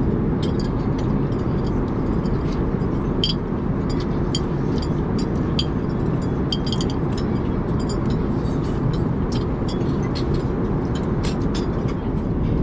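Steady low rumble of an Airbus A380 cabin in cruise, with light, scattered clinks of chopsticks and tableware on dishes.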